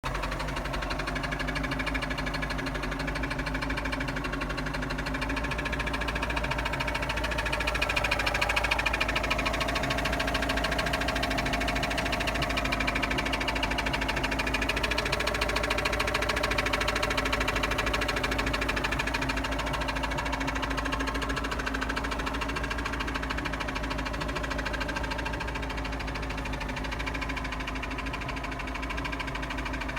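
Engine running steadily with its drive disconnected, with a fast, even knocking: a knock that appears only after two to three minutes of running.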